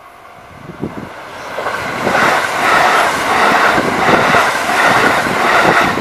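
Kintetsu electric train approaching and passing close by at speed. Its wheels on the rails build over the first two seconds, then run loud with a rapid clatter.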